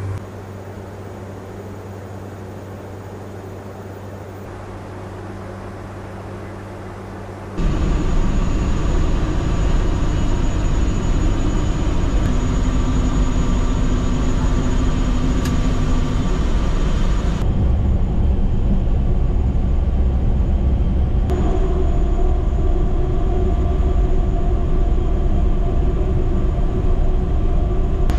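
For the first several seconds, a quieter steady low hum with a few steady tones. Then a sudden jump to the loud, steady rumble heard in the cockpit of an Airbus A400M Atlas in flight, from its four turboprop engines and the airflow, with steady tones over it.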